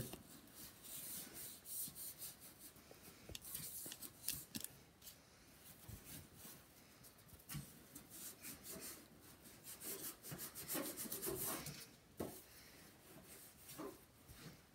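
A sponge scrubbing the plastic front bezel of a Samsung SyncMaster 700s CRT monitor: faint, irregular scratchy rubbing strokes.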